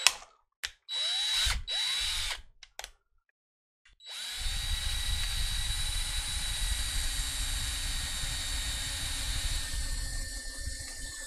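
Cordless drill spun in a few short trigger bursts, then running steadily for about six seconds as the bit cuts through the aluminium V-slot extrusion. Its whine drops slightly and grows a little quieter near the end.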